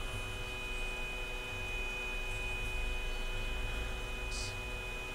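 Steady electrical hum with a thin, steady high-pitched whine over it, and a faint brief rustle about four seconds in.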